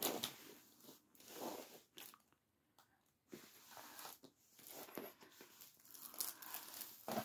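Faint, irregular crinkling and rustling of the glossy plastic film covering a diamond painting canvas as it is handled, with a few sharp clicks.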